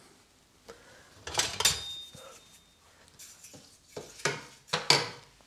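Metal cookware and utensils clattering: a handful of separate knocks and clinks, one of them ringing on briefly about a second and a half in.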